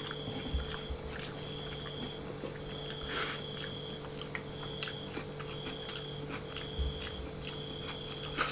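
Eating with the fingers: rice and chicken curry squished and mixed on a plate, with soft chewing and scattered small clicks, over a steady low hum.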